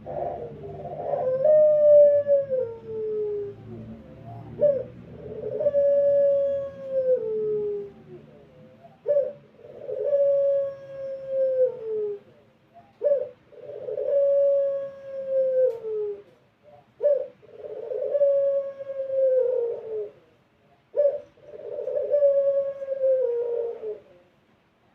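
Puter pelung, a domestic Barbary dove kept for its long, drawn-out coo, cooing over and over. There are six calls about four seconds apart, each a short note followed by a long steady coo that falls away at the end.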